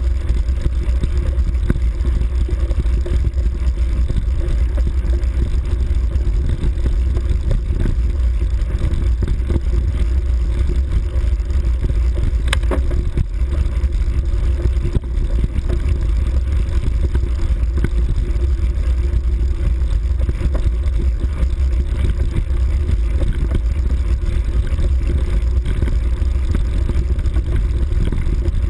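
Motorbike engine running steadily while riding along a grassy forest track, with a heavy wind rumble on the microphone.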